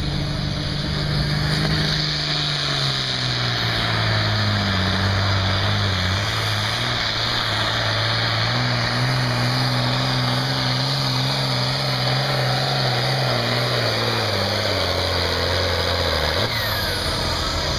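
John Deere diesel tractor pulling a weight-transfer sled, its engine running hard under load with a steady note that slowly sinks in pitch as the sled bogs it down. The engine note breaks off near the end.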